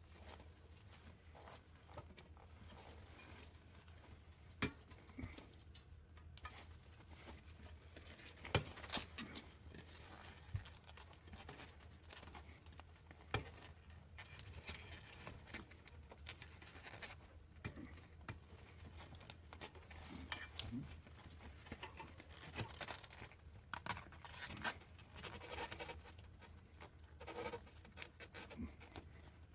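Handling noise from work on a wheelchair wheel and tyre: scattered light clicks, knocks and rubbing, a few sharper taps among them, over a faint steady low hum.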